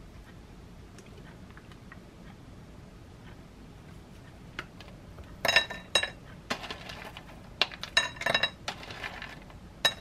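Hard coconut chunks rattling in a plastic tub and clinking onto a ceramic plate, in several short bursts from about halfway through. Before that there are only faint light ticks of a knife spreading yogurt.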